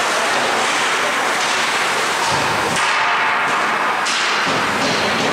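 Ice hockey play: skates scraping the ice under steady rink noise, with several sharp clacks of sticks and puck and a couple of dull thuds.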